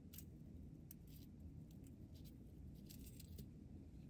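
Near silence: room tone with a few faint, light ticks.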